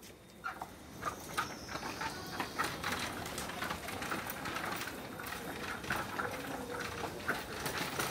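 A child's red plastic tricycle rattling and clicking as its wheels roll over stone paving slabs, an irregular run of small clatters that gets busier about a second in.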